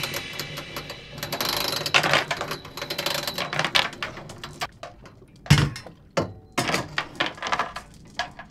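Anchor chain being hauled up by hand over a boat's bow, its links rattling and clinking in irregular metallic clicks, with one louder clank about five and a half seconds in.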